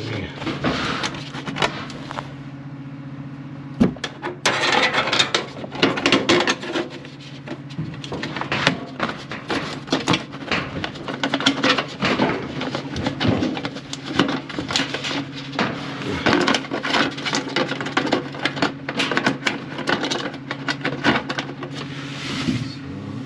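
Sheet-metal dryer vent duct being handled and fitted into place: irregular knocks, clanks and scraping of metal, many in quick succession, over a steady low hum.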